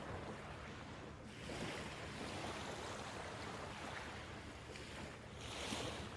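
Sea surf washing in, swelling up twice, about a second and a half in and again near the end.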